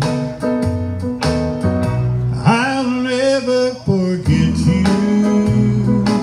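Guitar backing track for a slow song, with a man singing into a microphone; about two and a half seconds in he holds one long, wavering note.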